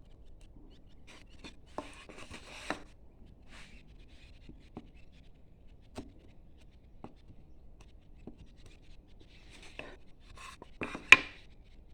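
Hand chisel cutting into wood: two short runs of scraping strokes, with scattered sharp ticks of the tool against the wood, the loudest a sharp click about eleven seconds in.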